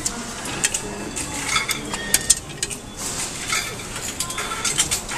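Metro ticket vending machine's mechanism running with a string of clicks and metallic clinks while it issues a ticket.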